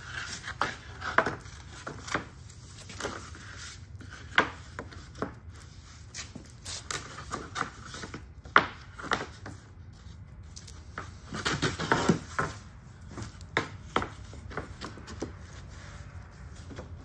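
Southern Yellow Pine shiplap boards being flipped over one by one on a stack: irregular wooden knocks and clacks as board meets board, with the rub of boards sliding across each other. The knocks come thickest about two-thirds of the way through.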